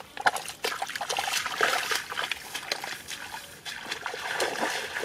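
Bare feet splashing and squelching through shallow muddy water, a run of irregular wet splashes and trickles.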